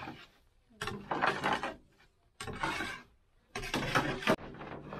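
Metal scoop and scraper scraping across a large steel pan of thick hot candy syrup: three rasping scrapes about a second apart, then a steadier scrape near the end.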